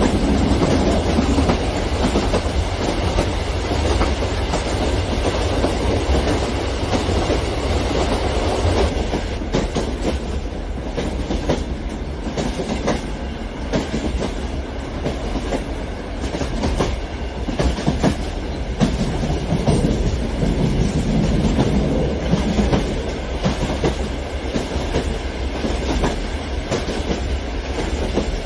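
Large-scale electric model trains rolling along the track: a steady rumble of wheels on rail with a run of clickety-clack clicks, which grow more distinct about nine seconds in.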